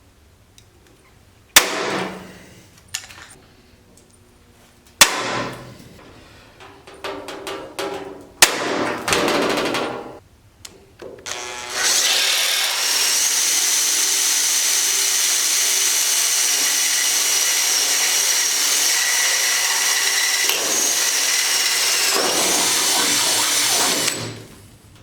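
A few sharp knocks and clatter of hardware being handled, then a power drill running steadily for about twelve seconds with a high whine before it stops.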